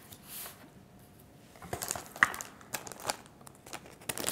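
Paper cards and a plastic bag of drinking straws being handled on a table: scattered light rustles and clicks, one sharper click about two seconds in, then close crinkling of the plastic bag near the end.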